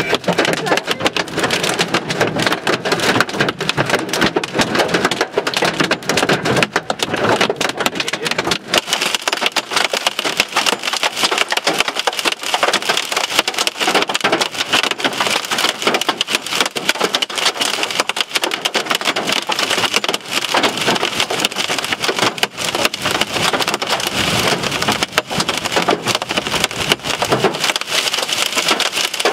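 Hailstones pelting a vehicle's roof and windshield, heard from inside the cab: a dense, unbroken clatter of impacts.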